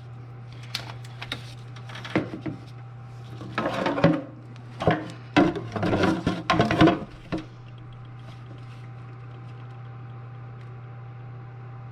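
Scattered knocks, clicks and scraping as a disconnected power steering hose is handled and plugged, over a steady low hum. The handling stops after about seven seconds, leaving only the hum.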